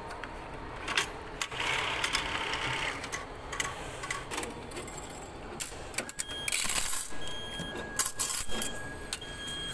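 Railway station ticket vending machine: scattered clicks and short metallic clatters, then a faint steady electronic tone with short repeated beeps.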